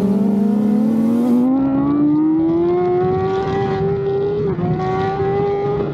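BMW S1000RR superbike's inline-four engine under hard acceleration: the revs climb over the first few seconds, then hold high, with a brief break about four and a half seconds in. Wind hiss on the microphone fades out after about a second and a half.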